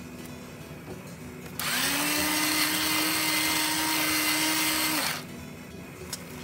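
Electric salt grinder running for about three and a half seconds, its motor tone rising as it starts and dropping as it stops, with the gritty noise of salt being ground.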